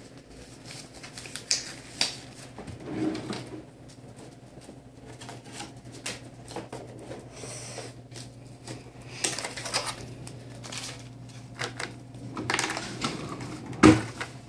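Scattered clicks, rattles and rustles of blood-draw supplies being handled at a phlebotomy station, over a steady low hum, with a sharp knock a little before the end.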